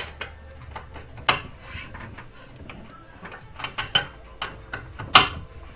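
Wrench tightening a wideband O2 sensor into the exhaust downpipe: scattered metallic clicks and clinks, a few of them sharp, the loudest near the end.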